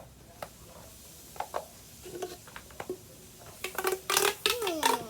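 Plastic fidget toys being handled and passed over: scattered light clicks and rattles, growing into a busier clatter near the end, with a short voice sound mixed in.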